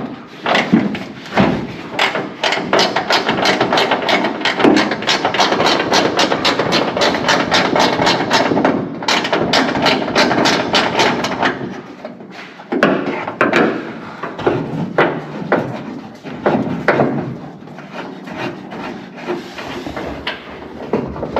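Fast, steady hammering, about five blows a second for some twelve seconds, then a few scattered knocks.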